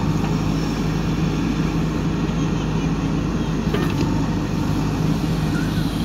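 JCB 3DX backhoe loader's diesel engine running steadily under load while the backhoe boom swings.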